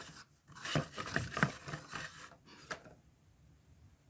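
Cardboard and plastic packaging being handled as a toy figure is pulled from its box: a few short clicks and rustles in the first three seconds, then quiet.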